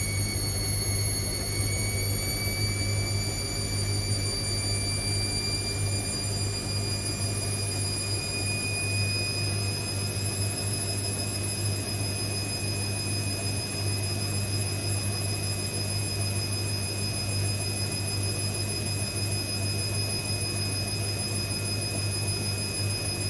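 Indesit IWC6165 washing machine spinning, its motor giving a high whine that rises slowly in pitch, over a steady low hum.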